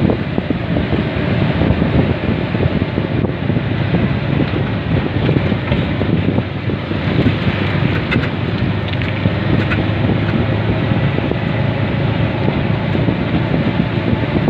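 Wind noise on the microphone: a steady, loud low rumble.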